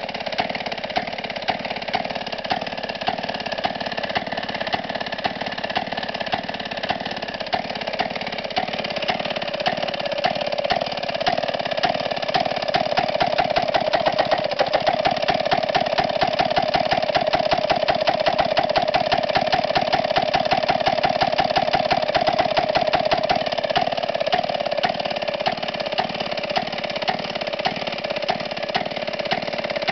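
Maytag Model 92 single-cylinder, air-cooled two-stroke engine running steadily with a rapid, even firing beat. It is louder through the middle stretch.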